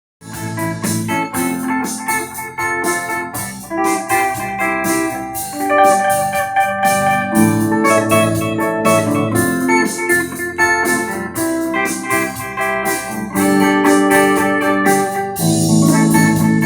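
Electric guitar set to a clean tone, playing chords and melody lines over accompaniment with a steady beat.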